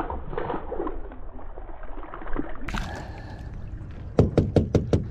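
KastKing fishing reel on a rod dunked into salt water, with a short splash and slosh. Near the end comes a rapid run of sharp clicks, about seven a second for just over a second.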